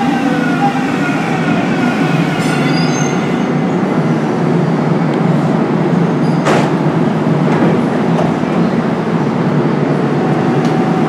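DART light rail train (Kinki Sharyo cars) pulling into the station and slowing to a stop: a steady rumble of wheels on rail, with the electric motor whine falling in pitch in the first second as it brakes. There is a single sharp clank about six and a half seconds in.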